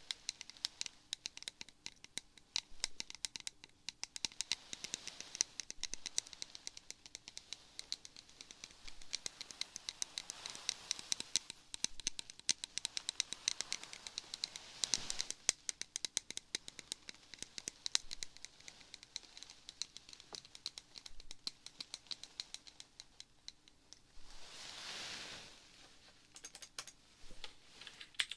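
Typing on a computer keyboard close to the microphone: quick runs of light key clicks with short pauses. Two soft swishes come in, about halfway and again near the end.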